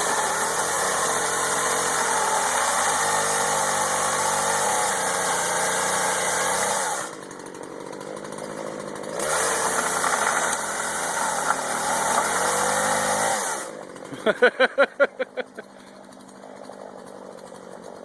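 Two-stroke chainsaw revved hard in two long stretches, its pitch dipping and recovering as it works. It drops back between them, gives a quick run of short blips near the end, then settles to a lower idle.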